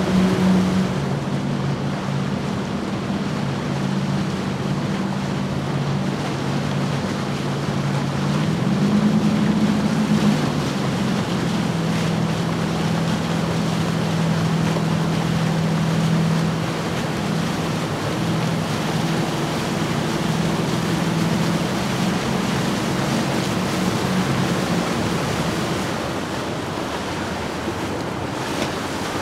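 Outboard motors of passing boats running at low speed: a steady engine hum that rises in pitch about nine seconds in, over the wash of water and wind on the microphone. The engine hum fades out after about twenty seconds, leaving the water wash and wind.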